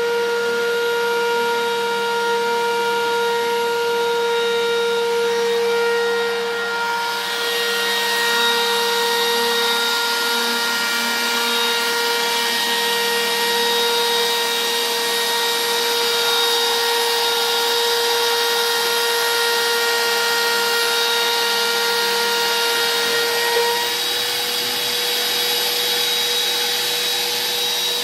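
A 1 hp Bosch trim router, the spindle of a small hobby CNC router, runs with a steady high whine while its 1/4" carbide tapered ball-nose bit cuts a relief into hard cherry on the machine's lowest feed speed. About seven seconds in, the cutting hiss grows wider and harsher.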